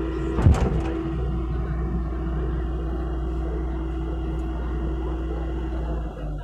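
Hitachi mini excavator's diesel engine running steadily, with a held tone over its drone and one loud knock about half a second in.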